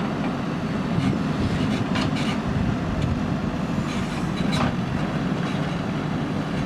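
JCB backhoe loader's diesel engine running steadily under load while digging, with a few short sharp knocks from the working machine.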